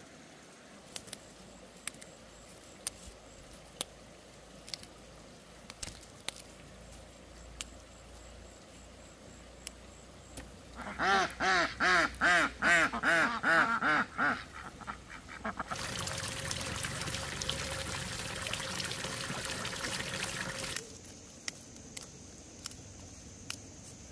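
Ducks quacking, about ten loud calls in quick succession, followed by about five seconds of steady rushing noise that stops abruptly.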